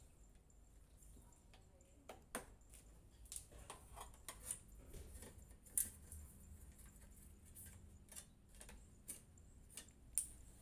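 Scattered small clicks and taps of a number plate and its fixings being handled and fitted to a scooter's rear plate bracket, with two sharper clicks about six and ten seconds in.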